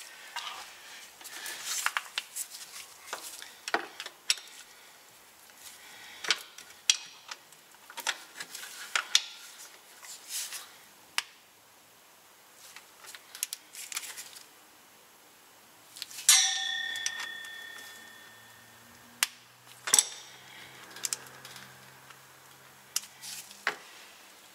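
Metal hand tools clicking and clinking during the final tightening of a transfer-case drain plug with a torque wrench and extension. About 16 seconds in there is one sharp metallic clang that rings for about two seconds.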